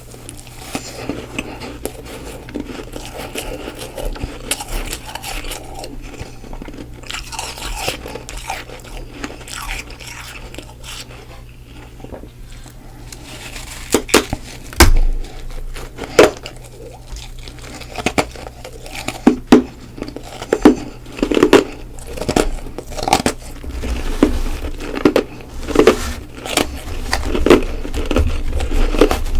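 Close-up crunching of freezer frost being bitten and chewed. It starts as softer crackling chews, then from about halfway on comes a run of loud, sharp crunching bites about a second apart.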